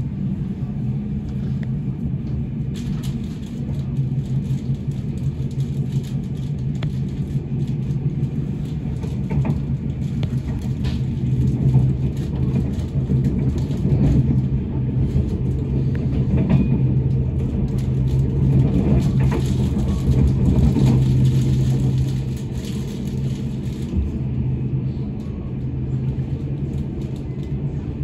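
Intercity train running along the track, heard from inside the carriage: a steady rumble with a low hum and scattered clicks from the wheels and rails, growing louder in the middle of the stretch before easing again.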